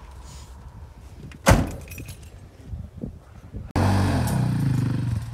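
A single sharp knock about a second and a half in. Near the end, the Jeep Comanche's engine comes in suddenly, running at raised revs that settle down to a steady lower note.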